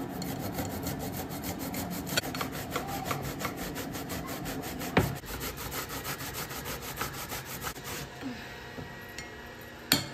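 Zucchini being grated on a flat stainless-steel hand grater over a glass bowl: a rapid rasping rub, about five strokes a second, with one loud knock about halfway through. The grating stops a couple of seconds before the end.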